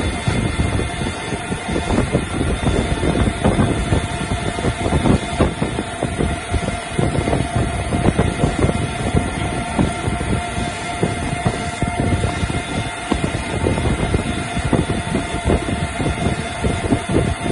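CNC lathe running with its spindle turning a metal shaft while an insert tool takes a finishing cut: dense, rough mechanical noise with a steady whine throughout.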